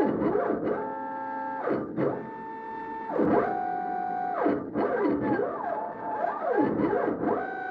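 Stepper motors of a home-made hobby CNC machine whining as they drive the marker-pen carriage through letter shapes. The pitch sweeps up and down in arcs while the pen traces curves, and holds steady tones on the straight strokes.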